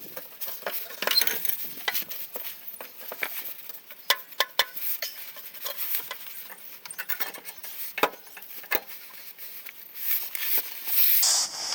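Scattered metallic clinks and knocks of a replacement Celica exhaust section being handled, offered up and slid onto its joint.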